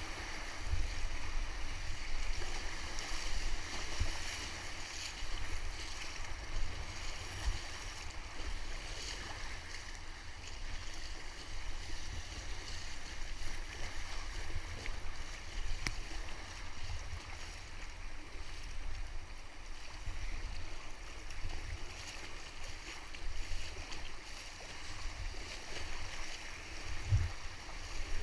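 River rapids rushing and splashing around an inflatable kayak, a steady roar of whitewater with an uneven low rumble underneath.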